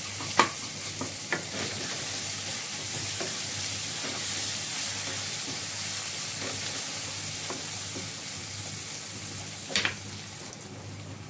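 Onions and ginger-garlic paste sizzling in hot oil in a kadai, with a spoon knocking against the pan a few times as it is stirred, mostly near the start and once about ten seconds in. The sizzle is steady and grows a little quieter near the end.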